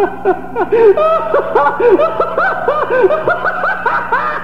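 Rapid laughter on an old reel-to-reel tape recording, each 'ha' rising and falling in pitch, several a second, carrying on without a break.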